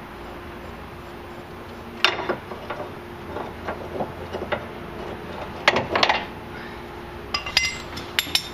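Steel Pitman arm puller being worked loose and lifted off the freed Pitman arm under a steering gearbox: a run of sharp metallic clinks and knocks that starts about two seconds in and is loudest around six seconds.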